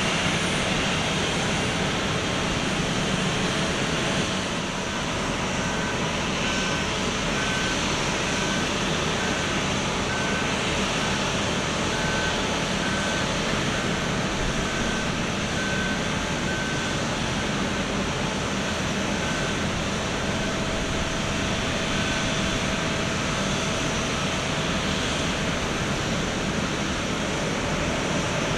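Steady noise of an Airbus A350-900 and its pushback ground equipment on the apron. From about five seconds in until a little past two-thirds of the way through, a ground vehicle's reversing beeper sounds a single high beep, a little faster than once a second.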